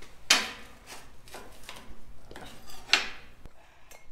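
Metal pieces being worked loose and handled by gloved hands: scraping and rubbing, with a louder scrape about a third of a second in and another about three seconds in.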